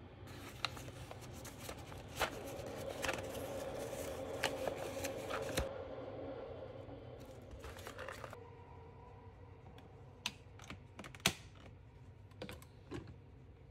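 A paper coffee bag rustling and crinkling, and coffee beans rattling as they go into the bean hopper of a Panasonic NC-A57 coffee maker. Near the end come a few separate sharp clicks as the hopper lid is fitted.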